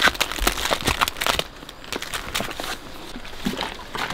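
Irregular crinkling and clicking, dense for about the first second and a half, then sparser scattered clicks.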